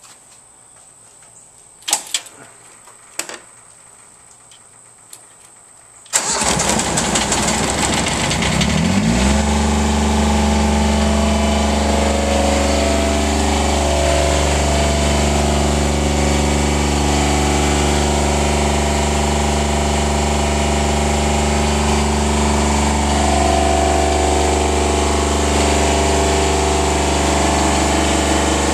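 Two sharp clicks, then about six seconds in the John Deere 332 lawn tractor's engine starts suddenly. Its pitch climbs for about three seconds as it comes up to speed, then it runs steadily.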